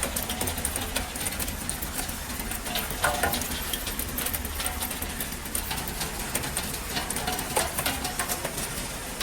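Refrigerator recycling line machinery at the magnetic separator stage running: a steady low hum under a constant clatter of small shredded fragments, with many sharp ticks and a louder clack about three seconds in.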